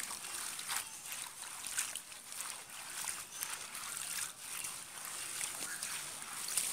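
Hands swishing and lifting red spinach leaves in a metal bowl of water: irregular splashing and sloshing as the leaves are washed.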